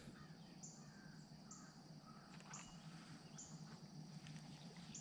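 Near silence with faint insect chirping: short high chirps repeat about once a second over a faint steady high hum.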